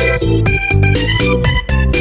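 Upbeat background music with a steady beat, keyboard and bass chords changing in quick rhythmic steps.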